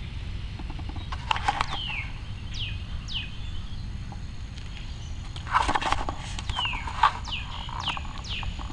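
A bird calling with short whistled notes that slide downward, repeated every half second to a second, over a low steady background rumble. A few brief rustling clatters cut in, the loudest about five and a half seconds in.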